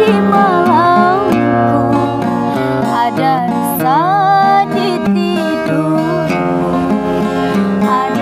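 A woman singing a slow ballad to an acoustic guitar accompaniment, her voice sliding and bending between notes over the guitar's steady chords.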